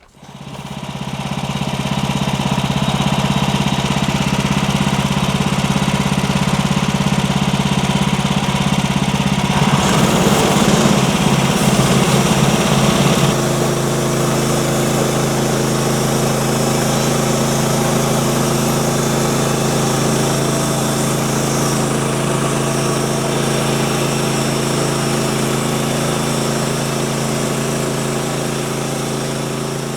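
Small gasoline engine of a manual band sawmill running steadily at high throttle while the blade saws through a poplar log. The engine comes up to speed in the first second or so, gets harsher between about ten and thirteen seconds, then settles to a slightly different steady note.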